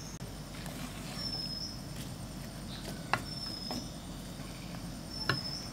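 Wooden spatula stirring eggplant pieces in a clay pot, with two sharp knocks against the pot, about three seconds in and near the end. A short high chirp repeats every second or two in the background.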